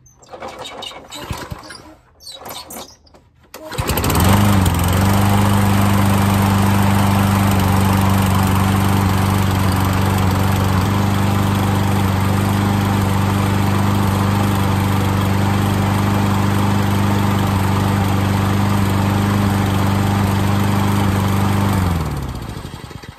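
Toro Recycler push mower's small four-stroke engine: a few short pulls on the starter cord, then it catches about four seconds in, runs at a steady speed, and winds down and stops near the end. The owner judges it to be running a little lean.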